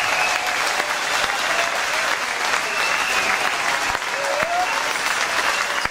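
Large concert audience clapping and cheering.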